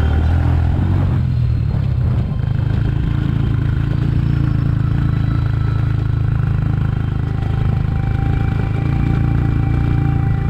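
Motorcycle engine running steadily as the bike is ridden along a rough dirt track, with a heavy low rumble throughout.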